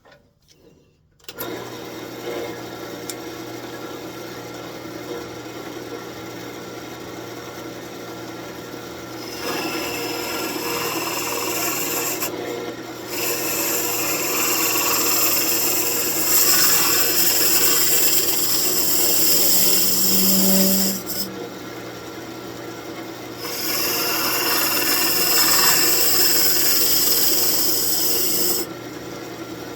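Wood lathe starting about a second in and running with a steady hum, then a turning tool cutting into the spinning birch branch as it is hollowed out. The cutting comes in several bouts of harsh scraping a few seconds long, with short pauses between them.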